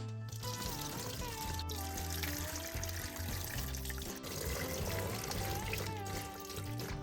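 Background music with a gliding melody over a steady hiss.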